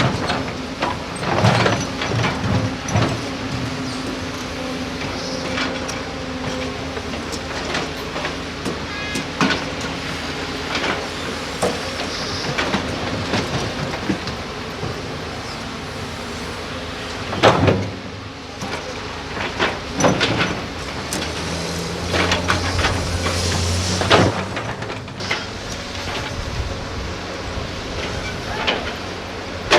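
Excavator diesel engines running steadily at a sand mine dig, with scattered metallic clanks and knocks. A louder impact comes a little past halfway, and another after a heavier stretch of engine noise about three-quarters of the way in.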